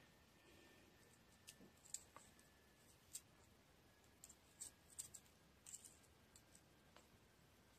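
Faint, irregular clicks of a small carving knife cutting into raw carrot as the thin inner petals of a carrot rose are carved.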